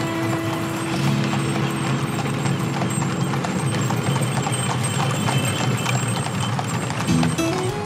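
Horses' hooves clip-clopping on a tarmac road as a pair of horses pull a bow top wagon, heard over background music with held notes.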